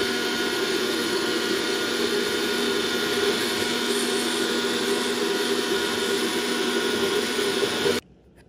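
Electric blender running steadily, blending fruit and almond milk into a smoothie, then cutting off suddenly about eight seconds in.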